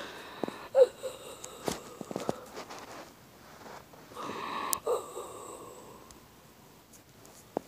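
A person breathing noisily and wheezily close to a phone's microphone, in two long breathy stretches, with a few sharp clicks and taps in between.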